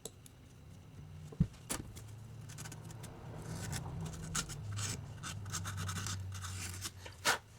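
Hands working on carburetor parts: scattered light clicks and taps with some rubbing and scraping, over a faint low hum.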